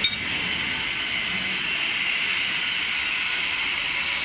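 Steady hissing workshop machinery noise, with one sharp metallic clink right at the start, like a steel wrench knocking the pellet mill's roller bolts.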